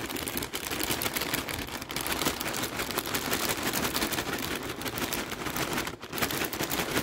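Plastic salad bag crinkling and rustling as salad mix is shaken out of it into a bowl: a dense, continuous run of crackles.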